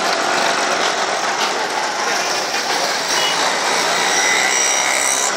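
Busy street traffic: auto-rickshaw engines running among other vehicles in a dense, steady din. About three and a half seconds in, a thin, high steady tone joins it.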